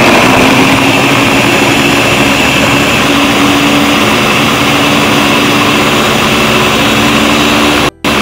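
Countertop blender motor running at full speed, blending frozen strawberries with milk into a smoothie: a loud, steady whir with a faint, slightly rising tone. It cuts off suddenly near the end.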